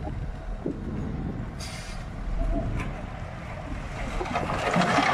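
Caterpillar 140H motor grader running as it moves forward with its blade down, pushing through gravel and mud. A gritty scraping noise builds over the last second or so.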